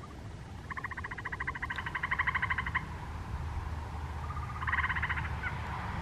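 Treefrog calling from the trees: a fast, even pulsed trill lasting about two seconds, then a shorter trill near the end.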